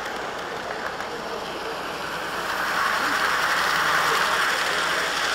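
HO scale model trains rolling on their track: a steady rushing of wheels on rail, growing louder about two and a half seconds in as a second train runs close alongside on the next track.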